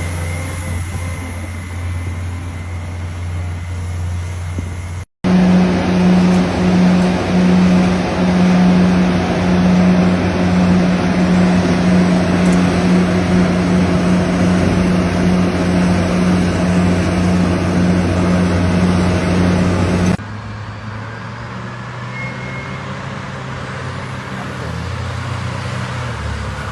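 Heavy-equipment diesel engines running steadily, in three cut-together stretches. The middle stretch is the loudest, with a strong steady low drone, and it breaks off abruptly about 20 seconds in.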